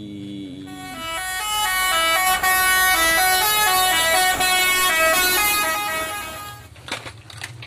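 Multi-tone musical horn of a large bus, the Indonesian 'telolet' type, playing a quick run of changing notes like a tune. It starts about a second in and stops shortly before the end, followed by a few clicks.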